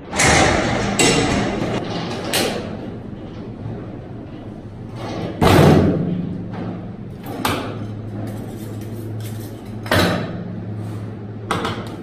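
Sharp knocks and thuds of knives on beef and a butcher's board, about seven in all, the loudest about halfway through, over a steady low hum.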